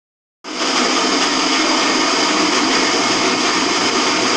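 Electrolux LTE06 top-loading washing machine in its spin cycle, making a loud, steady noise with a thin high whine over it, starting suddenly about half a second in. The noise is a fault: the machine is far too noisy when it spins.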